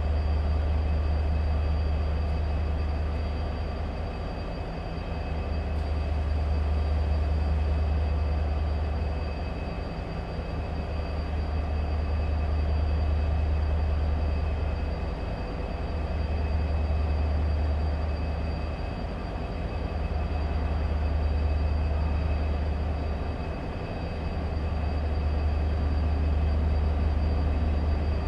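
A train running close by: a loud, steady low drone that swells and eases every few seconds, with a faint steady high whine above it.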